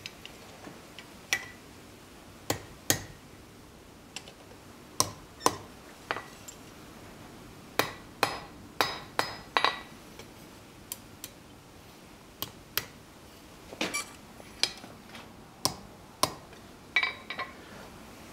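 Light hammer taps on a steel anvil, irregularly spaced, some ringing briefly, with small clinks of steel tongs. The hammer is bending the hot steel stem of a small forged leaf around into a loop.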